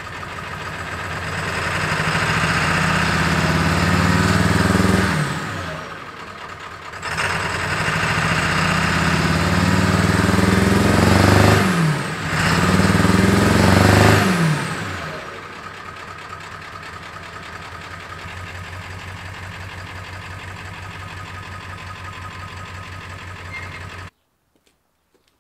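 Ford F-550's 7.3 L Power Stroke turbo-diesel V8 running shortly after a cold start: it is revved up and let fall back twice, then idles steadily. The sound cuts off suddenly near the end.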